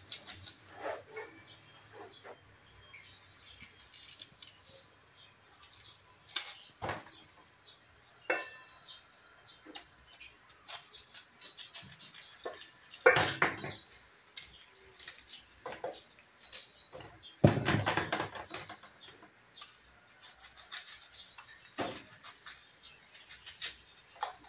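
Hands and a small knife working tarap fruit over a stainless steel bowl, making scattered small clicks and knocks, with two louder clattering handling noises about halfway and two-thirds of the way through. A steady high insect drone and a few faint bird chirps run underneath.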